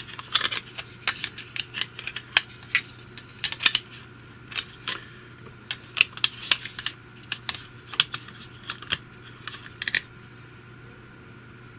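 Irregular sharp plastic clicks and taps as AA batteries are fitted into the battery compartment of a small plastic Ecowitt indoor thermometer-hygrometer sensor. The clicking stops about ten seconds in, leaving a steady low hum.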